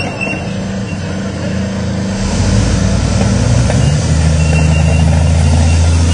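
Tracked armoured vehicle driving, its engine running heavy and low, picking up in revs and loudness about two seconds in as it moves away from the flattened car.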